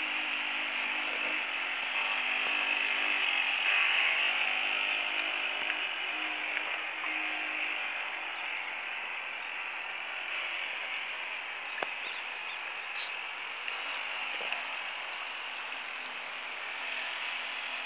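Small electric motor of a New Bright Sea Ray toy radio-controlled boat running with a steady buzzing whirr. Its lower hum shifts pitch in steps during the first half, and there are a few light clicks later on.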